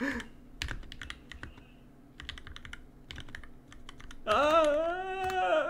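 Typing on an NK65 Entry Edition 65% mechanical keyboard fitted with lubed, filmed Durock L2 linear switches: a quick, irregular run of keystrokes. About four seconds in, a man's drawn-out vocal sound, louder than the keys, starts over the typing.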